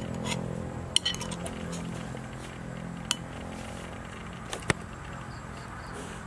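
Metal spoon clinking and scraping against a bowl while scooping rice, with a cluster of sharp clinks about a second in and single clinks about three seconds in and near five seconds.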